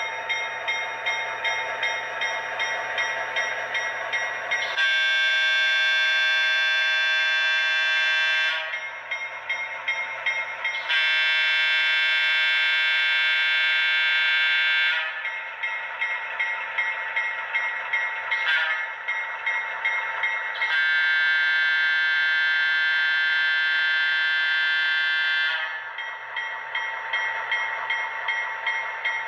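Sound decoder of an HO scale FM H16-44 model diesel locomotive playing its Fairbanks-Morse opposed-piston diesel running steadily. The multi-chime air horn sounds the grade-crossing signal: two long blasts, one short, then one long, starting about five seconds in.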